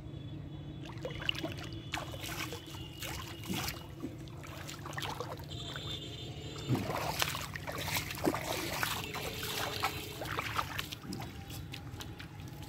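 Shallow water splashing and sloshing irregularly as someone wades through it and works a hand net, over a steady low hum.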